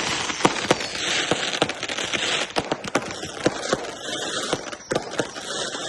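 Fireworks going off: a dense run of sharp, irregular cracks and pops over a continuous hiss.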